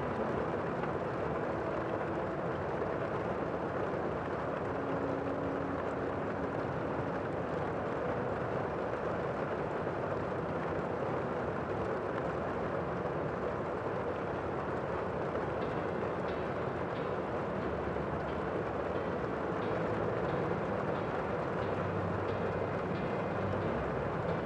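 Steady outdoor rushing noise, even throughout, with a few faint brief low hums and light ticks in the latter half.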